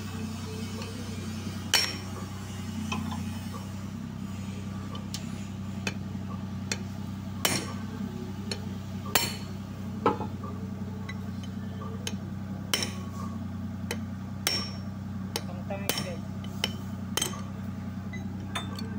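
Hand hammer striking a steel rod set against the pinion of a DA64V differential carrier to drive the pinion gear out: a dozen or so sharp metallic blows at irregular intervals, some ringing briefly, over a steady low hum.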